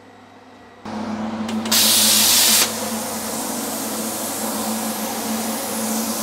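Plasma cutter switched on with no arc struck: a steady hiss of air over a low hum. About two seconds in there is a louder rush of air for about a second.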